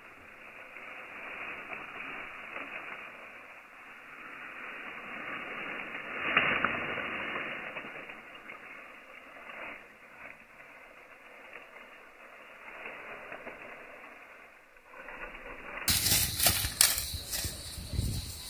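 Rustling of dry grass that sounds muffled and thin for most of the time, then louder, sharper crackling of dry stalks near the end, like steps through the grass.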